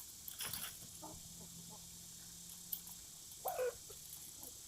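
Red Ranger chickens clucking, a few short calls: one about half a second in, another near one second and a stronger one about three and a half seconds in.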